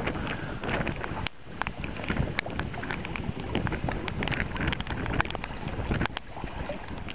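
Gusty wind buffeting the microphone while choppy water splashes against a kayak, with many short sharp clicks and slaps from the water on the hull.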